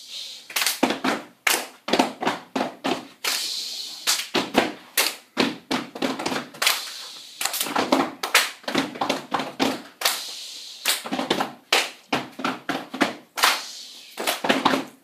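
A step team performing: stomps on the floor, hand claps and slaps on the body in a quick, uneven rhythm of sharp hits, with short pauses between phrases.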